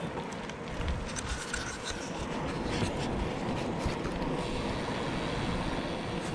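Steady rush of a Trek Checkpoint gravel bike rolling along pavement at speed, with wind on the handlebar camera's microphone and scattered light clicks and rattles from the bike.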